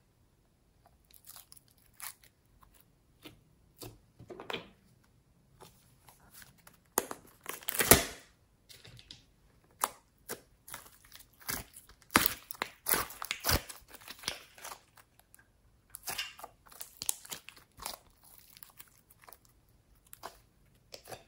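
Hands squishing, stretching and folding glossy slime, giving irregular sticky crackles and pops. The loudest stretch comes about eight seconds in, with more busy crackling a few seconds later.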